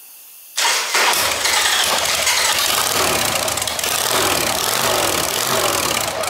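1999 Harley-Davidson XLH1200 Sportster's air-cooled Evolution V-twin starting up about half a second in, then idling steadily. It is running to circulate flushing oil through the engine before an oil change.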